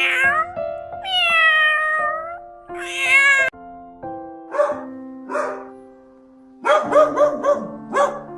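Cat meowing over background music: a long drawn-out meow, a few shorter ones, then a quick run of short meows near the end.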